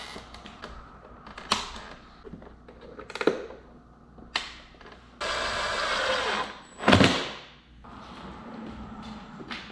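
Plastic motorcycle fairing panels being handled and pressed onto the bike's frame: scattered clicks and knocks of plastic. There is a stretch of scraping noise about five seconds in and a loud knock about seven seconds in.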